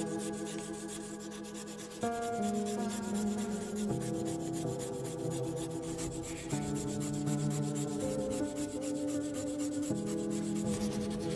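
A wooden stick rubbed rapidly back and forth along a wooden board in quick, even strokes, making fire by friction with a fire plough. Slow background music with held chords plays underneath.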